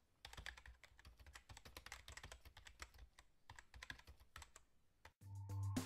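Faint handling noise of a cardboard box and a paper manual: quick small clicks, taps and rustles as the box flaps are opened and the booklet is taken out. Electronic music with a bass beat comes in near the end.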